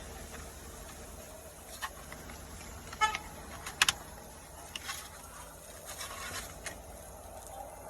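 Several sharp clicks and knocks with some rustling, including a short squeak about three seconds in and a loud double click just before four seconds. These fit hands working the plastic glove box and cabin filter housing during a cabin air filter change.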